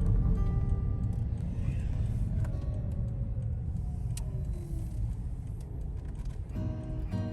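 Steady low rumble of road traffic, with one vehicle going by and its pitch falling about two to five seconds in. Background music with guitar comes back near the end.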